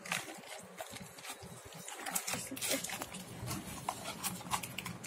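Cadbury Monster Gems plastic packet crinkling and rustling in the hands as it is handled and opened, in irregular crackles.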